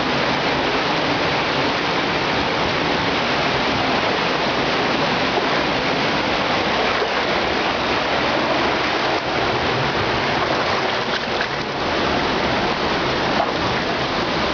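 Steady rush of running water in a cave.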